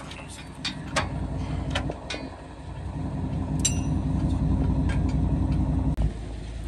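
Pickup truck engine idling with a steady low pulsing rumble, louder past the middle and dropping suddenly near the end. Over it come several sharp metallic clicks and clanks in the first couple of seconds and one ringing clank near the middle, from the hoist being strapped down.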